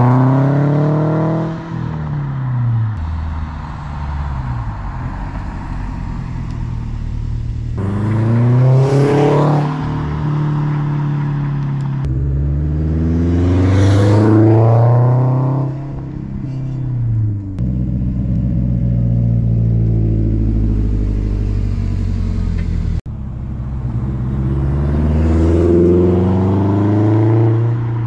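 Subaru WRX STI's turbocharged flat-four engine, fitted with a modified exhaust, in a series of hard-accelerating drive-bys. In each pass the engine note climbs in pitch as it revs, then falls away, with abrupt cuts between passes. One stretch in the middle is a steadier low drone.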